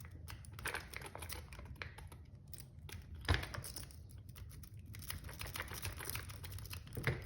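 Rapid, irregular metallic clicking and scratching of a lock pick being raked across the pin tumblers of a padlock, with a couple of louder knocks, about three seconds in and near the end.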